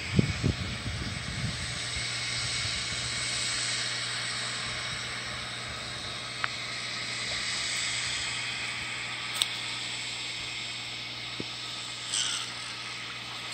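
Steady outdoor hiss with a low hum beneath it. Brief low rustling thumps come in the first second or so, and a few sharp clicks later, from a caught catfish being handled and unhooked.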